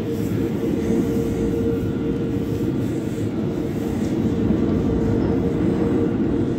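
New York City subway train noise filling the underground station: a steady rumble with a constant whine.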